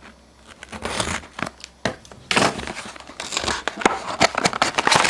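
Plastic wrapping on trading-card packs crinkling and tearing as they are handled and opened. It starts quietly about a second in and gets louder and busier about halfway through, with many sharp crackles.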